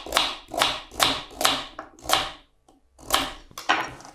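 Kitchen knife chopping through a raw carrot onto a wooden cutting board, a crisp chop about three times a second. The chopping stops for about a second past the middle, then two more cuts follow.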